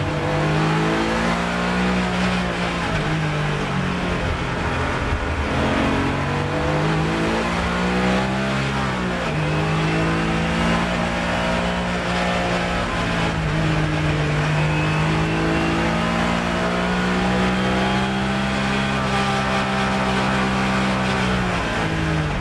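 Race car engine under hard acceleration, heard from inside the cockpit. The revs climb and drop sharply twice as it shifts up, then hold steady and high, and fall near the end as the driver lifts off.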